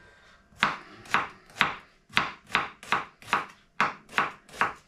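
Kitchen knife chopping onion on a cutting board, in regular strokes about two a second, starting just over half a second in.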